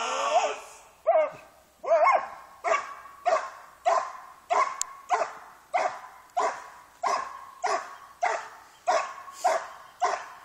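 A Schutzhund protection dog barking steadily and rhythmically at the helper, about one bark every 0.6 seconds: the hold-and-bark.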